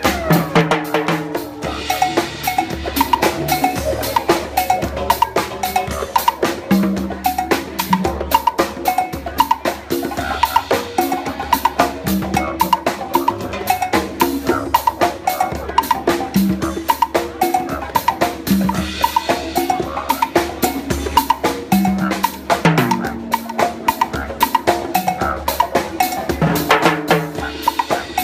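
Live Latin percussion ensemble: congas and timbales played in a fast, dense groove, with sharp strokes and ringing open drum tones throughout.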